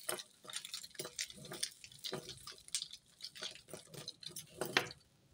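Metal costume jewellery (chains, rings and pendants) clinking and rattling in short irregular clicks as hands sort and untangle it, with one sharper clink near the end.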